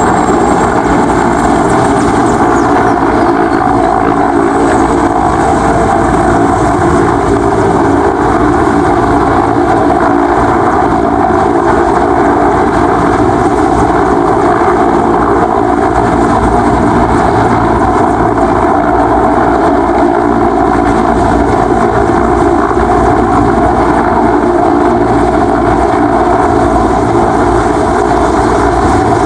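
Mi-8-family twin-turbine military transport helicopter hovering low and settling toward the ground. Its rotor and turbine noise holds at a steady, loud level, with a thin steady whine above it.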